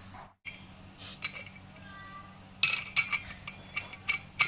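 Metal hand tools clinking and clattering, with several sharp clicks in quick runs: a wrench and socket being handled during work on the engine. A steady low hum lies underneath.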